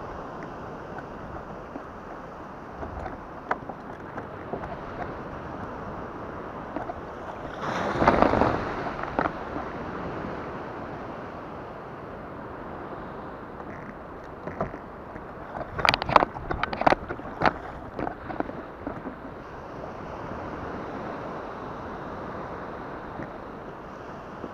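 Steady wash of water and wind around a plastic fishing kayak, with a louder rush about eight seconds in. A quick cluster of sharp knocks and clicks near the middle is gear being handled against the kayak's hull and fittings.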